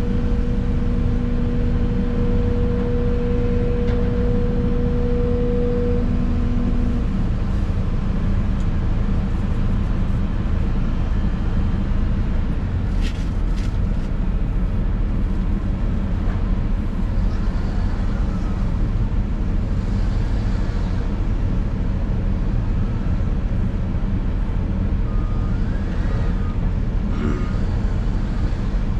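Excavator's diesel engine running steadily, heard from inside the cab, with a steady whine over it that cuts off about six seconds in. Near the end a reversing alarm starts beeping at a regular pace.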